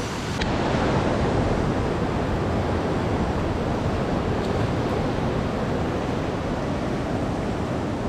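Pool water jets churning, a steady rushing of water that swells about half a second in and holds.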